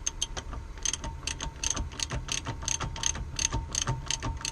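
Socket ratchet wrench clicking in quick, even strokes as a nut or bolt is tightened back up, about four to five clicks a second.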